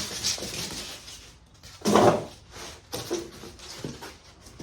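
Styrofoam packing being pulled out of a cardboard box: rustling and scraping with a few knocks, and one louder scrape about two seconds in.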